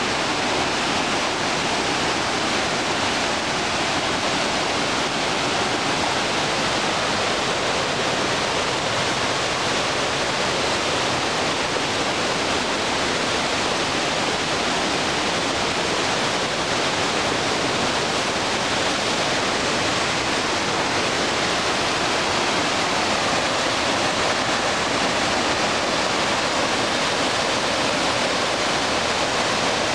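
Creek running high with winter flow, its water rushing over bedrock ledges and small cascades in a steady, even rush of whitewater.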